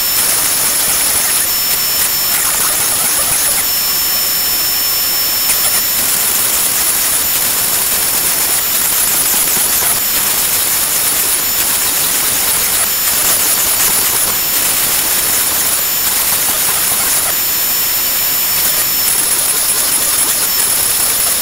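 Shapeoko XXL CNC router cutting Baltic birch plywood: the palm-router spindle runs at a steady high whine, with high tones dropping out and returning every second or so as the bit moves through the cut.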